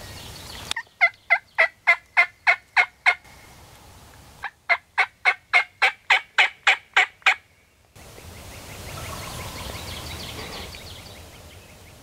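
Hand-worked turkey call making two runs of hen yelps, about ten evenly spaced notes in each, with a short pause between the runs; each note drops in pitch. The yelps are meant to draw in a gobbler.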